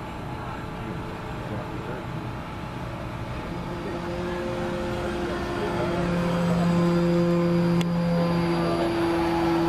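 Electric motor and propeller of a radio-controlled model airplane making a pass, a steady hum that grows louder from about four seconds in.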